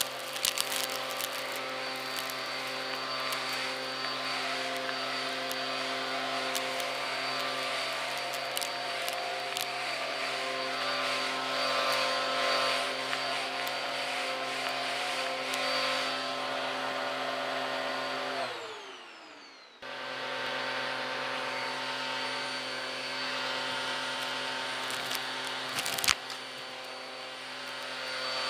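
Vacuum cleaner motor running steadily while a hose with a brush attachment sucks up dust and small debris from a rug, with crackling as bits rattle up the hose. About two-thirds of the way through, the motor hum falls in pitch and fades, then cuts back in abruptly about a second later; a sharp click near the end.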